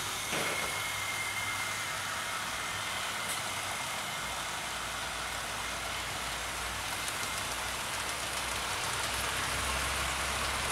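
Several 00 gauge model trains running at once on sectional track: a steady rolling hiss of metal wheels on rail and small electric motors. A low hum comes in about four seconds in and grows stronger near the end.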